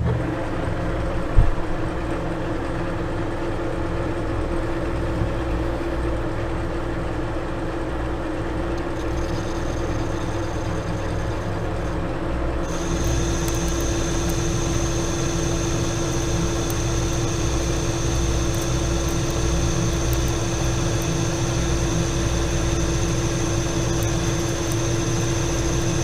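Metal lathe running steadily while an insert tool turns a steel roller die, taking a 20-thou-deep cut. A sharp knock about a second and a half in, and from about thirteen seconds a high-pitched whine from the cut joins in and holds.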